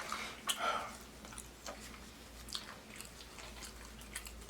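A person chewing food close to the microphone, with a few scattered wet mouth clicks and smacks.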